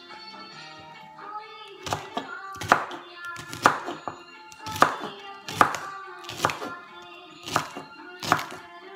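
Kitchen knife chopping a vegetable on a wooden cutting board, sharp knocks about once a second, over background music.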